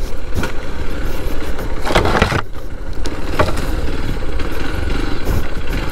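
Hero Xpulse 200 4V's single-cylinder engine running as the motorcycle is ridden off-road.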